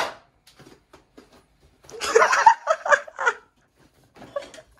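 A person laughing in a short burst about two seconds in, with a few short laughing pulses near the end. Before the laugh there are a few faint taps of a kitchen knife on a wooden chopping board.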